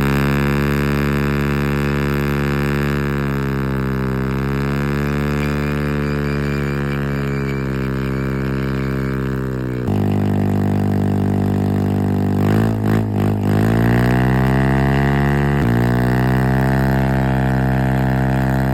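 Yamaha R15's single-cylinder engine through an Akrapovic full exhaust system, held at steady revs for a burnout. The pitch wavers slightly and steps to a new level about halfway. About two-thirds through the revs dip briefly with a few sharp cracks, then come back up.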